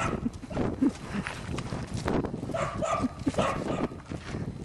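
An animal's short, high-pitched calls, a few of them coming close together about halfway through, over rustling and handling noise.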